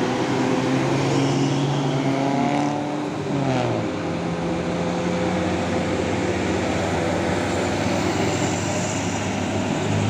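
Tour bus diesel engine pulling uphill under load. Its engine note drops about three and a half seconds in, as with a gear change, then runs steadily again.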